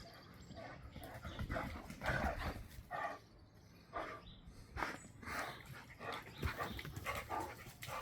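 Dogs barking and growling in short bursts, several times over, as they play rough.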